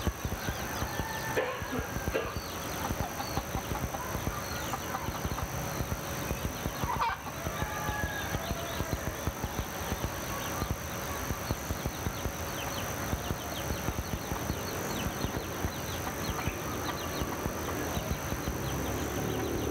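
Chickens clucking amid small birds chirping, over a dense patter of small clicks.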